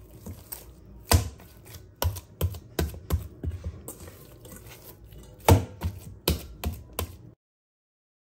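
Soft oiled dough being beaten and slapped by hand in a stainless steel bowl: irregular wet slaps and knocks against the steel. The sound cuts off suddenly about seven seconds in.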